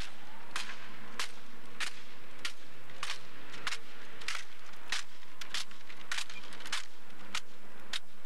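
A drill platoon working a rifle manual in unison: sharp smacks of hands striking rifles, one about every half second to two-thirds of a second, now and then two close together.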